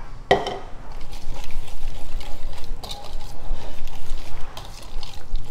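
Oil poured into a stainless steel bowl of chopped herbs and vinegar, then a whisk stirring through the wet mixture and scraping the bowl, bringing the chimichurri's oil and vinegar together.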